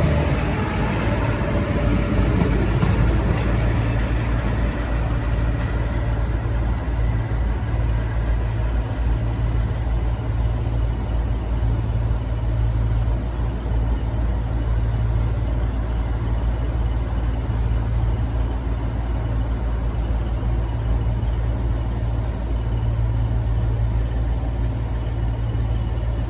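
Steady low rumble of a diesel train's engine.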